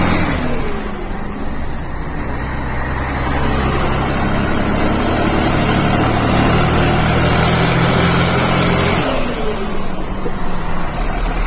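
Diesel truck engine pulling away under load with a loud, roaring exhaust. The revs climb slowly, drop suddenly at a gear change about nine seconds in, then climb again.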